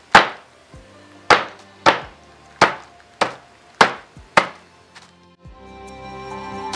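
Fresh ginger and turmeric roots being smashed flat (geprek) with seven sharp, heavy blows against a hard surface, bruising them to release their juices for a ginger drink. Background music comes up near the end.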